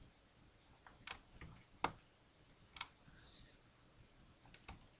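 Faint, irregular clicks of a computer mouse and keyboard, about eight or nine scattered through the few seconds, the sharpest a little under two seconds in.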